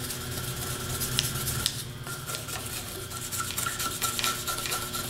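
Small wire brush scrubbing the steel splines of a 42MT starter armature shaft, a run of quick scratching strokes, cleaning dirt and imperfections out of the spline.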